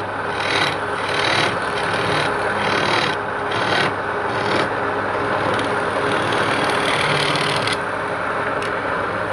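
Abrasive tool scraping wood in rhythmic strokes, about one every half second or so, blending into steadier rubbing about halfway through, over a faint steady machine hum.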